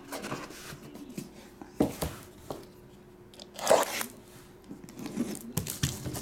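Shrink-wrap plastic on sealed trading card boxes being handled and torn: a few scattered crackles and knocks, the loudest a little past halfway, then plastic crinkling thickening near the end as the wrap comes off.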